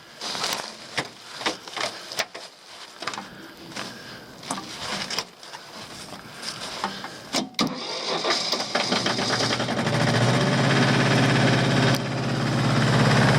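A series of sharp clicks and knocks, then a diesel tractor engine cranks over and catches about eight seconds in, settling into a steady run. It starts once the PTO is disengaged, since the tractor will not start with the PTO engaged.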